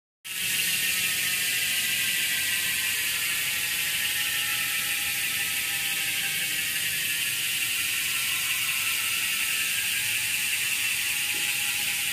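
Freehub of a deep-section carbon road-bike rear wheel spinning freely off the ground, its pawls clicking so fast they merge into one steady buzzing whir. It starts abruptly and drops slowly in pitch as the wheel coasts.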